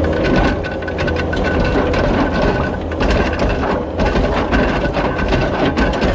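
Kubota SVL75 compact track loader's diesel engine running hard with a steady hydraulic whine, while rocks knock and scrape in its rock bucket. The whine drops out briefly about halfway through.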